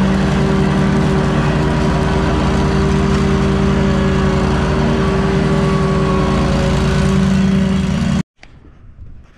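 Walker riding mower with its GHS grass-catcher running steadily while mowing: a steady engine hum under a dense rushing noise. It cuts off abruptly about eight seconds in.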